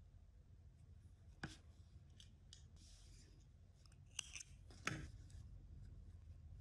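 Small scissors snipping yarn: two sharp clicks of the blades between four and five seconds in, the second the louder, with a single click about a second and a half in. Faint rustling of yarn and hands runs under it.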